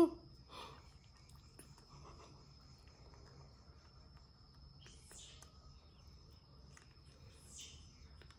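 Baby macaque sucking at a nearly empty feeding bottle, mostly quiet: two soft hissing sucks about five and seven and a half seconds in, a few faint clicks, and a brief loud sound right at the start. A steady high whine runs underneath.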